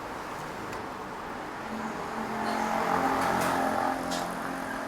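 Wheel balancing machine spinning a tyre and rim: a mechanical hum that builds from about two seconds in, peaks and then eases off near the end.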